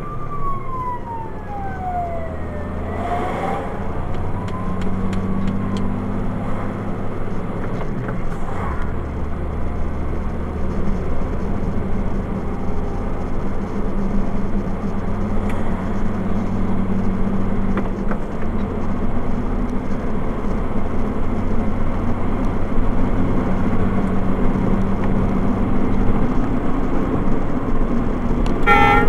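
Steady engine drone and road noise inside a moving vehicle's cab, the engine pitch stepping down a few times. A siren wails, rising and falling, over the first few seconds. Near the very end a loud horn starts blaring in quick repeated blasts.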